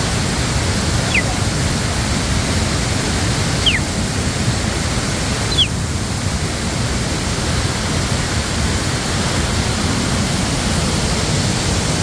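Steady rushing of a waterfall pouring into a rock pool, with three short high whistles falling in pitch about one, four and six seconds in.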